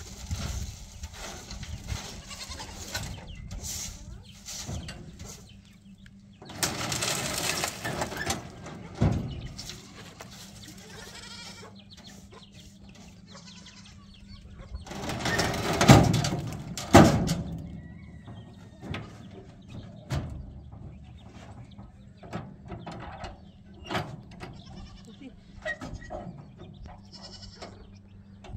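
A plastic broom sweeping dust and grit across a pickup truck's steel load bed in repeated short strokes, with goats bleating. Two loud sudden sounds stand out about halfway through.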